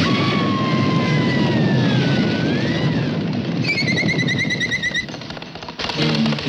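Cartoon sound effects: a long falling scream over a dense, rapid rattling rush, then a fast warbling whistle about four seconds in. Music comes back near the end.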